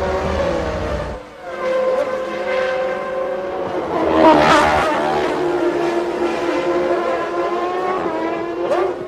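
1995 Formula One racing cars running at high revs, their engine notes rising and falling through the gears, with one car passing loudest about four and a half seconds in.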